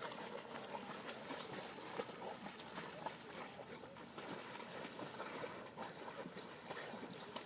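Light splashing and lapping of lake water: a faint, continuous trickle of small splashes.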